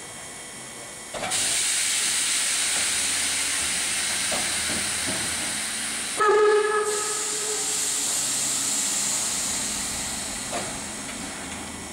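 DR Class 52 steam locomotive 52 8079 letting off steam: a loud, steady hiss starts about a second in and eases off near the end. About six seconds in comes one short blast of its steam whistle.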